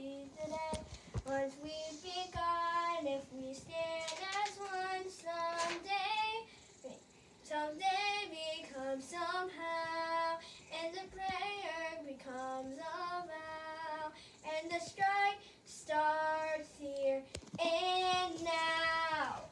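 A young girl singing a song alone, unaccompanied, practising it in phrases with short breaks, the longest about a third of the way through.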